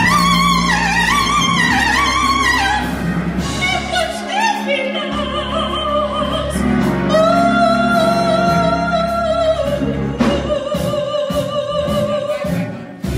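A woman soloist singing a church song with wide vibrato, ending in long held high notes, over a steady low instrumental accompaniment.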